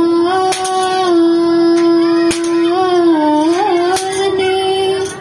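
A single voice singing long, drawn-out notes in a slow chant, the pitch held steady for seconds at a time, with a brief wavering turn about three and a half seconds in.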